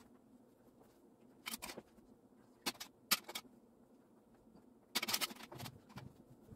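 A child coloring with crayons: short scratchy strokes of crayon on paper, four brief bursts, mixed with the clatter of crayons being picked out of a plastic bin.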